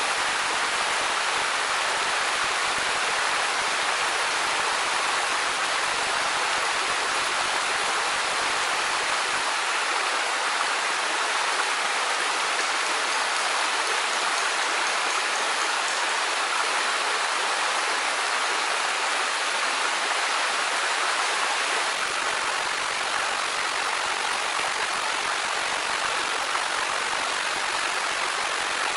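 Steady rush of a waterfall sheeting down a wet rock slab: a continuous, even water noise. A low rumble under it drops out for about twelve seconds in the middle.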